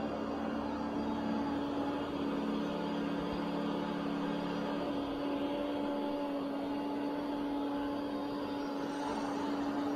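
Ecovacs Deebot O950 robot vacuum cleaning a rug with Carpet Boost on, which raises its suction on carpet: a steady motor hum with a strong low tone and fainter higher tones.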